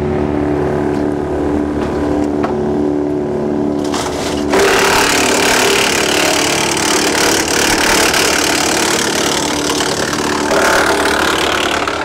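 Woodland Mills TF810 PRO PTO wood chipper running behind a tractor, with the engine's steady drone. About four and a half seconds in, it begins chipping a branch fed into it: a sudden, loud, dense grinding that carries on.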